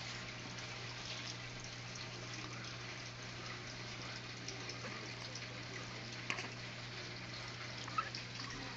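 Quiet room tone: a steady low hum under a faint even hiss, with two small clicks about six and eight seconds in.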